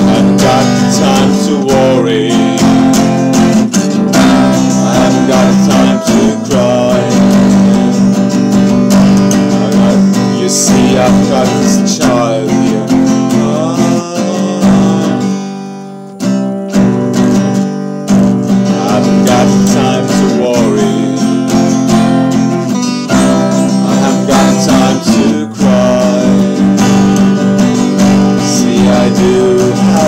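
Acoustic guitar strummed steadily with a man singing along over it. The playing thins out briefly about halfway through, then carries on.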